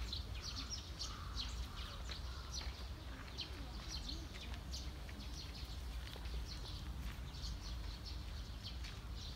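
Small birds chirping busily, a dense run of short high notes, over a low steady rumble.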